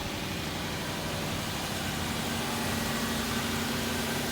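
1996 Lexus LS400's 4.0-litre V8 idling steadily, with a steady low tone joining about two seconds in.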